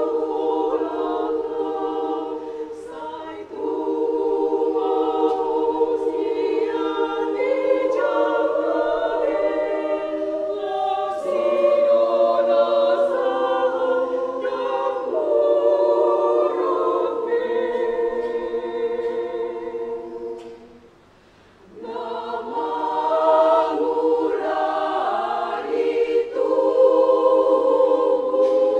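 Women's choir singing in several parts, with a short break a little past two-thirds of the way through before the voices come back in.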